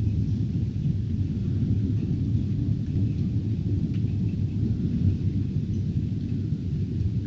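Thunder rolling in a steady low rumble, with a few faint raindrop ticks.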